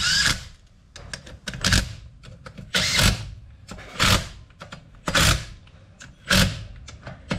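A handheld power drill or driver run in short bursts, about one a second, seven in all.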